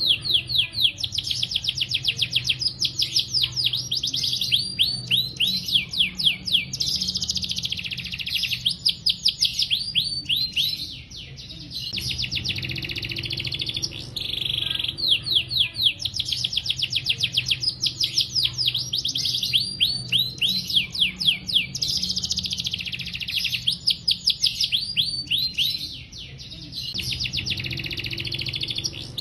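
Domestic canary singing long, continuous phrases of rapid trills and rolls, with short breaks about eleven seconds in and near the end.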